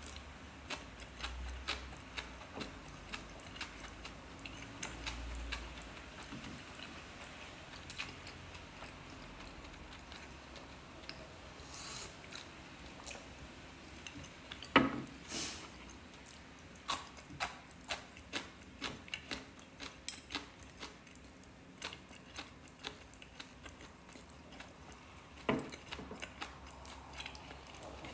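A person eating with chopsticks from ceramic bowls: light clicks of chopsticks against the bowls and quiet chewing, with a louder knock of a bowl on the wooden tray about halfway through and another near the end.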